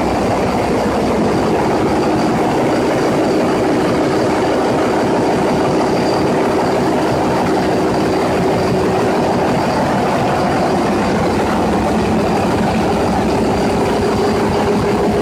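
Large 20-cylinder Wärtsilä engine running at steady speed: loud, dense, even engine noise with a faint steady high tone over it.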